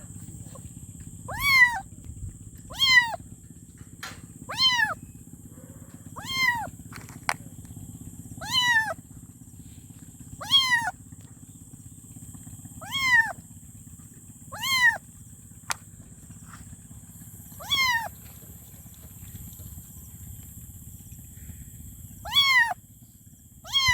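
A kitten meowing for its mother: about eleven short, high-pitched meows, each rising and then falling in pitch, repeated every second and a half to two seconds with a pause of a few seconds near the end. A steady low hum runs underneath.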